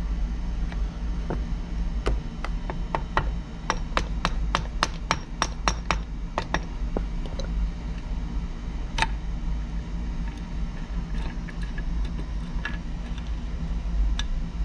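Metal transmission parts of a two-stroke dirt bike engine clinking as they are handled: a quick run of about fifteen light metallic clicks, roughly three a second, then a few scattered clinks, over a steady low hum.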